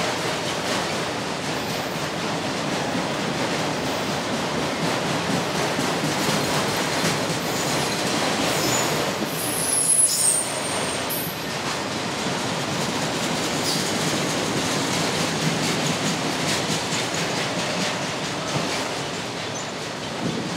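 Autorack freight cars rolling past close by: a steady rumble and rattle of steel wheels on the rails. Near the middle there is a brief high-pitched wheel squeal, the loudest moment.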